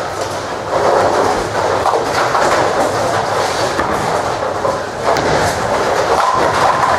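Ten-pin bowling balls rolling down the lanes with a continuous rumble, with pins clattering as they are struck, including a sharp knock about five seconds in.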